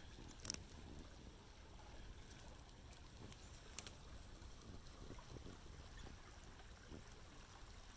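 Faint creek water running over shallow rock with a low rumble beneath it, and two brief clicks, one about half a second in and one near four seconds in.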